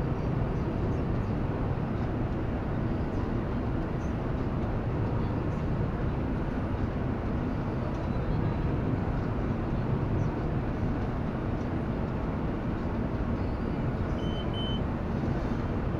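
Tractor engine running steadily while pulling a John Deere round baler that is picking up hay, heard from inside the tractor cab. A short high beep sounds near the end.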